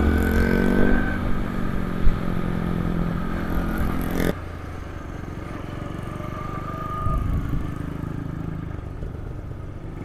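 Motorcycle engine running at a steady speed, with a couple of short knocks in the first seconds. A little over four seconds in the sound drops abruptly to a quieter, steadier running that carries on to the end.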